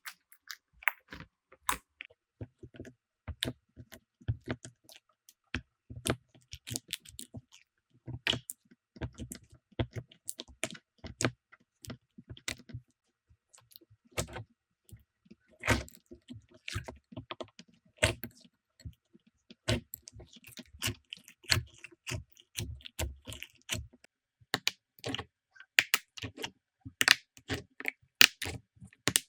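Slime being squeezed, poked and stretched by hand, making an irregular run of sticky clicks and pops, several a second.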